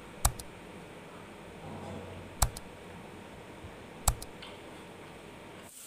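Three computer-mouse click sound effects about two seconds apart, each a quick double click like a button pressed and released, over a faint quiet background.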